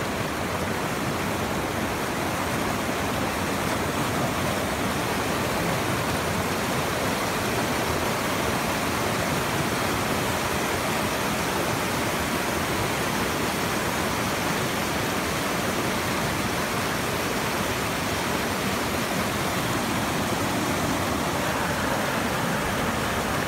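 River rapids, water rushing steadily over rock ledges.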